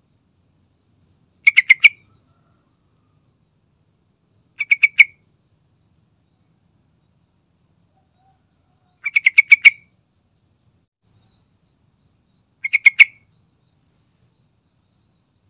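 Yellow-vented bulbul calling in four short, bubbly bursts of rapid notes, each under a second, a few seconds apart.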